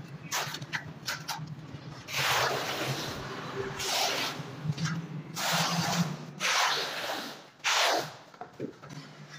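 Steel notched trowel scraping through a wet cement mortar bed on a concrete floor, combing it into ridges in about five long rasping strokes, after a few light clicks at the start.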